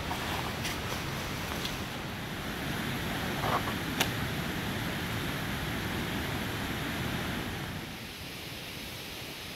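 River water running past, a steady rushing noise, with a sharp click about four seconds in; the rush drops a little near the end.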